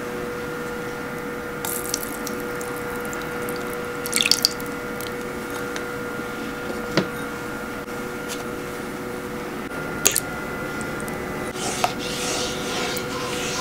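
Water poured from a glass measuring cup into a frying pan, with short splashes and drips, over a steady hum. Near the end a silicone spatula stirs butter in the water.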